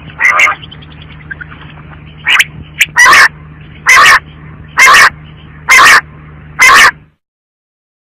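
Female quail calling: a series of short, loud calls about once a second over a steady low hum. The calls cut off suddenly about seven seconds in.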